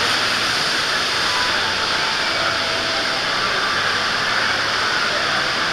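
Steady rushing of water pouring through water-slide flumes.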